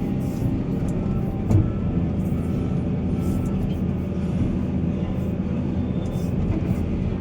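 Heavy diesel engine of mining machinery running steadily, with a single knock about a second and a half in.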